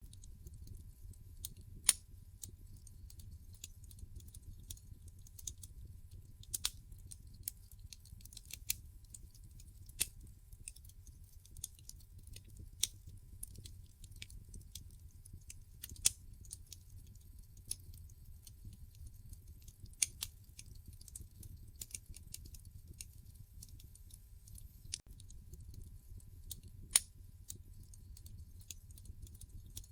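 Wood fire crackling in a fireplace: irregular sharp pops and snaps over a low steady rumble, with a few louder pops about two seconds in, around the middle and near the end.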